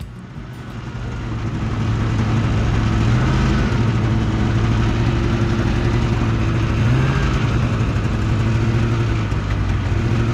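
Polaris snowmobile engine running at a steady cruising speed as it is ridden across lake ice, over a rushing noise of travel. It builds up over the first couple of seconds, and its pitch swells slightly twice.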